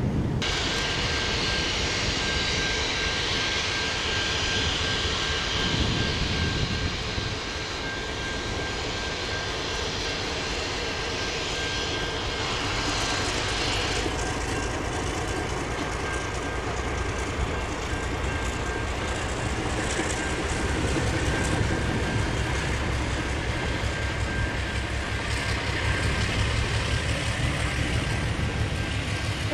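NSW C38 class steam locomotive 3801 moving off slowly with its train, its open cylinder drain cocks blowing steam in a loud hiss over a low rumble. The hiss weakens about halfway through as less steam is vented.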